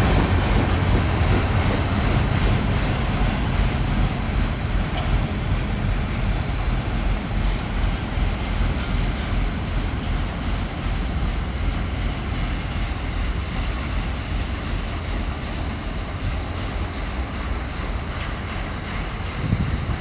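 Cars of a long freight train rolling past on the track: a steady rumble of wheels on rail that slowly grows quieter.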